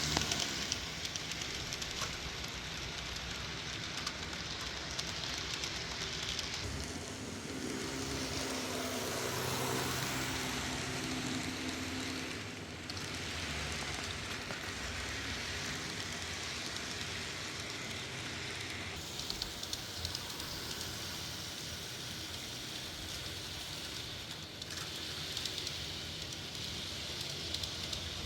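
Model diesel locomotive running on a model railroad layout: a steady rolling rumble and hiss. A sound with several evenly spaced tones joins it from about eight to twelve seconds in.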